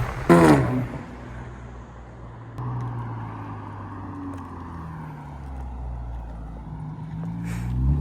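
BMW 335i's N54 inline-six engine and loud exhaust: a rev that falls away about half a second in, then the engine running low and fairly steady, picking up a little about two and a half seconds in. A short hiss comes near the end as the revs rise again.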